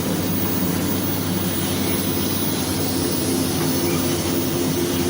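Steady drone of workshop machinery: a constant low hum with an even hiss over it.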